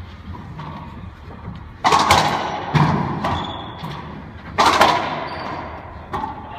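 Racquetball cracking off racquets and the court walls, sharp hits echoing in the enclosed court. The loudest come about two seconds in and again near five seconds, with softer knocks between them.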